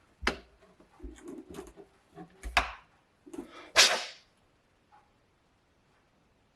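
Handling noises at a work bench: a series of sharp clicks and knocks with rustling between them, the loudest near the end of the run.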